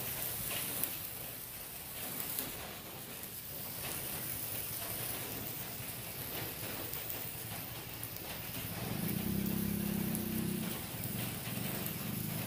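Handheld sparkler burning with a steady fizzing crackle, much like light rain. A low hum comes in for about two seconds near the end.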